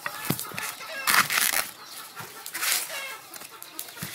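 Green corn husks rustling and tearing as they are stripped and cut with a knife on a wooden chopping board, with a few taps of the knife on the board. Chickens cluck about a second in and again near three seconds.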